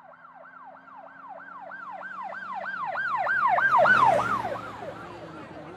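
Emergency vehicle siren in a fast yelp, each cycle sweeping down in pitch about three times a second. It grows louder to a peak about four seconds in, then fades.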